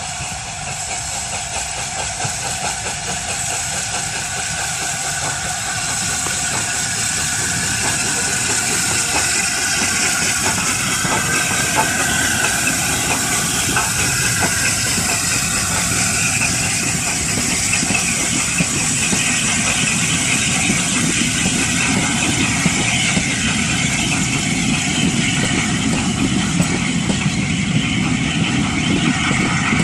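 LNER A4 Pacific 4464 Bittern, a three-cylinder steam locomotive, working towards and past under steam, growing louder over the first ten seconds or so. Its coaches then roll by, with sharp clicks from the wheels over rail joints near the end.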